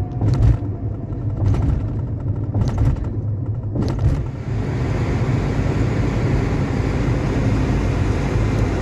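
Car cabin noise while driving on a highway: steady low engine and tyre rumble, with four short sharp thumps about a second apart in the first half, then a steady, louder rush of road noise.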